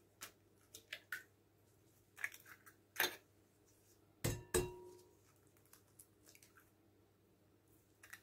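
Eggs being cracked against a glass mixing bowl: scattered quiet clicks and taps of shell, with a louder double knock about four seconds in that leaves the glass ringing briefly.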